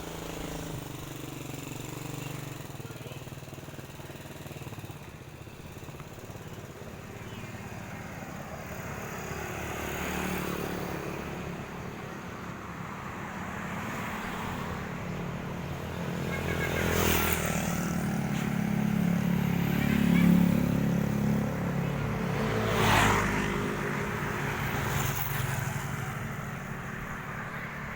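Road traffic: motorcycles and cars passing close by one after another over a steady rumble, the loudest passes near the middle and about two thirds of the way through.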